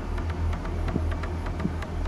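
Car driving, with a steady low rumble and scattered light clicks and rattles.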